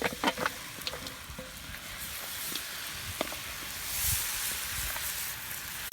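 Ground spices and mutton masala sizzling in hot oil in a cooking pot, a steady frying hiss, with a few sharp clicks of a ladle stirring near the start and again around three seconds in.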